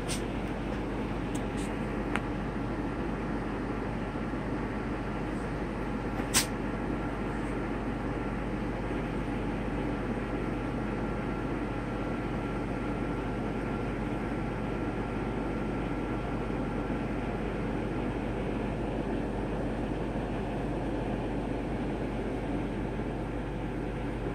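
A steady droning hum with no change in level, broken by a few sharp clicks in the first seconds; the loudest click comes about six seconds in.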